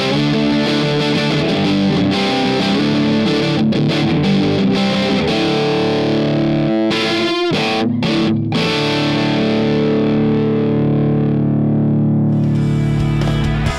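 Electric guitar played through an Agape Tribute 18-watt handwired tube amp with two EL84 power tubes, run at full volume in 18-watt mode with the bump switch and a clean boost on, so both preamp and power amp overdrive. It plays thick distorted chords, stops briefly twice, then lets one chord ring out for the last few seconds.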